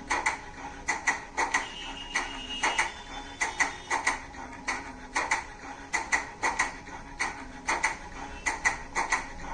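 Music playing through a Dell Vostro 3490 laptop's built-in speakers, in a bare percussive passage: sharp clicks in a steady rhythm, about two to three a second, with no melody.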